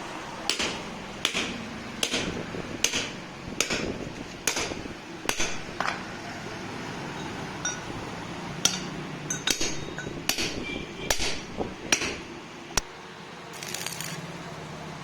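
Hammer striking steel: steady blows about one a second, then after a short pause a run of quicker, irregular sharp metallic clinks.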